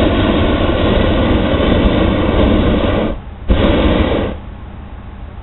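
Hot air balloon's propane burner firing: a loud long blast that cuts off about three seconds in, then a second short blast of under a second about half a second later.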